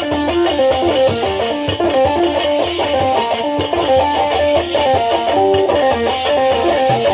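Instrumental music with no singing: a quick, busy plucked-string melody over a steady bass.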